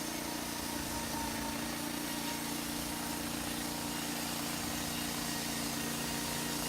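Small engine of a portable band sawmill running at a steady speed.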